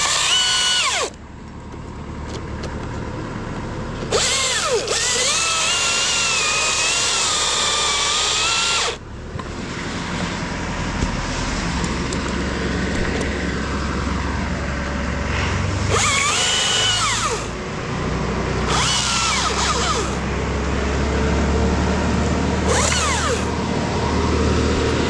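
Chainsaw revved to full throttle in several bursts of cutting, about five in all with the longest lasting around five seconds, dropping back to a low idle in between.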